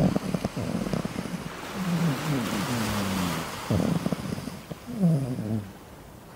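Chihuahua puppy talking in its sleep: a string of low grumbling grunts and moaning whines, several sliding down in pitch, some rough and growly.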